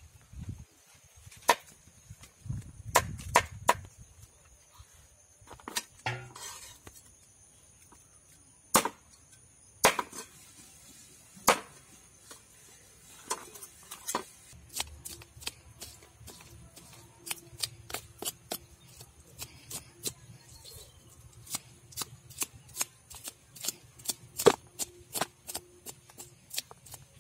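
Knife scraping scales off a whole fish on a wooden board, each stroke a sharp scrape. The strokes are scattered at first, then come quickly, several a second, from about halfway.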